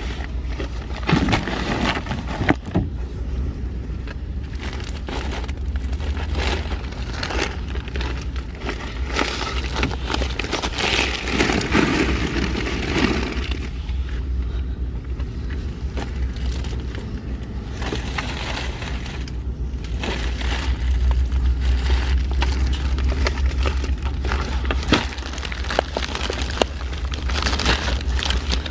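Shopping bags being loaded into a car's cargo area: rustling bags and knocks as they are set down on the carpeted floor, with a louder stretch of rustling about halfway through. A steady low rumble of wind on the microphone runs underneath.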